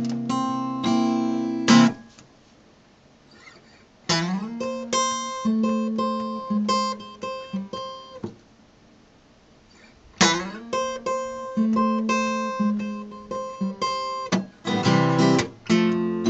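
Steel-string dreadnought acoustic guitar playing an instrumental blues passage, picked and strummed. The phrases break off twice, about two and eight seconds in, for roughly two seconds of near silence each, and a note slides up in pitch as the playing resumes around four seconds in.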